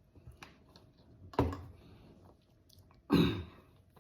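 Close-up chewing of crispy fried chicken wings, with two loud crunching bites about a second and a half apart.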